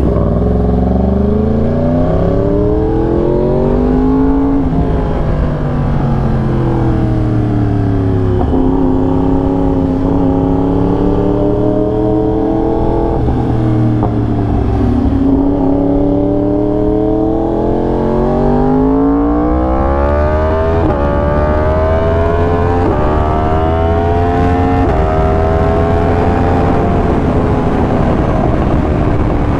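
2020 Yamaha R1's crossplane inline-four running through an SC Project exhaust while ridden, its pitch rising and falling with the throttle. Several quick gear changes in the second half.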